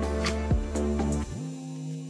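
Background music with sustained chords and drum hits; a little past halfway the drums and bass drop out, leaving a held note.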